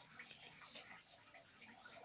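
Near silence: faint room tone with scattered light ticks and rustles.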